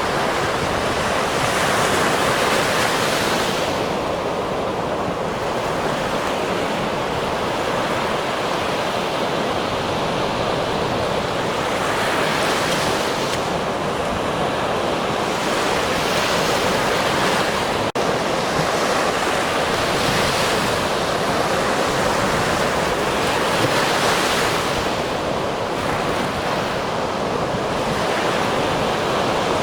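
Ocean surf: waves breaking continuously on a shore, the rushing hiss swelling and easing every few seconds.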